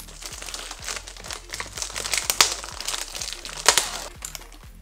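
Plastic cookie package wrapper crinkling as it is peeled open, with two louder sharp crackles, one about halfway through and one later.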